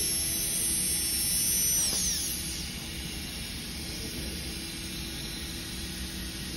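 Dental rotary handpiece running with a high-pitched whine, then spinning down and stopping about two seconds in, leaving a steady hiss.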